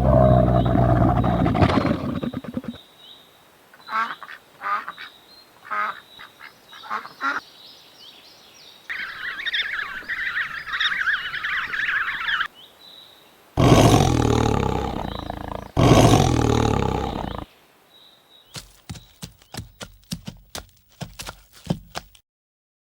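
A run of different animal calls, one after another. First, a long low call that carries on the cow mooing just before it. Then short sharp calls, a dense chatter, two long low bellows, and a quick run of short clicks.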